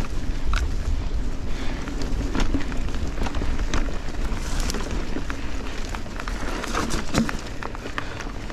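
Giant Trance 29 mountain bike ridden fast on dirt singletrack: tyres rolling over the trail under a steady rumble of wind on the microphone, with scattered clicks and rattles from the bike, a cluster of them about seven seconds in.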